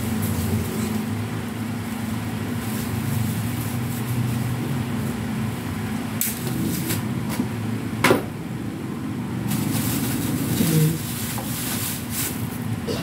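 Refrigerator compressor running with a steady low hum. A few light clicks of a tool on the wiring come past the middle, with one sharper knock about eight seconds in.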